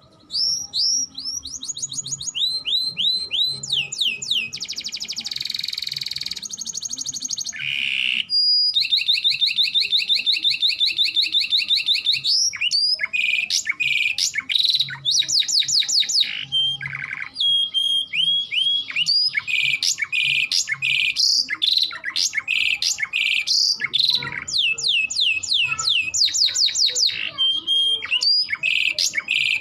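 Canary singing a long song of rapidly repeated sweeping notes and trills, switching between tours. It includes a buzzy roll and, about a third of the way in, a fast, even trill held for several seconds.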